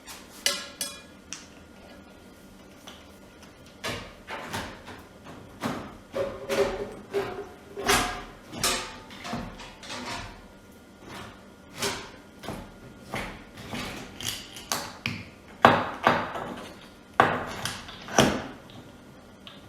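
Irregular knocks, clicks and clinks of the parts of a reverse osmosis drinking-water faucet being handled and fitted into place, a few with a short metallic ring. The loudest knocks come near the end.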